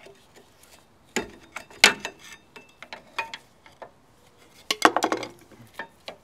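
Sharp metal clicks and clinks, some with a short ring, as a screwdriver pries at a rear brake pad rusted fast in its caliper bracket and the pad is worked loose. There is one strong clink about two seconds in and a quick run of clinks around five seconds.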